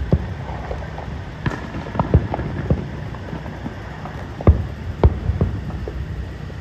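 Aerial fireworks shells bursting: an irregular run of sharp bangs, about a dozen, the loudest about four and a half and five seconds in, over steady low background noise.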